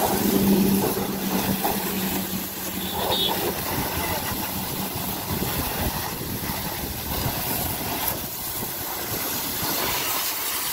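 High-pressure water jet hissing from a pressure-washer gun sprayed into a car's engine bay, with a steady low hum from the washer running through the first half.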